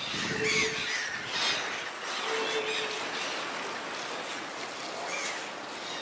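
Gulls calling: several short cries over a steady background noise.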